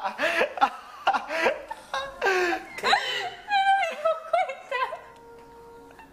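Several young people laughing hard together, the laughter dying down near the end.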